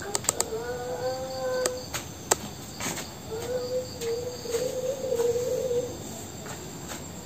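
A woman's voice wailing in two long, drawn-out calls held on nearly one pitch, the second longer and wavering, with a few sharp clicks in the first seconds.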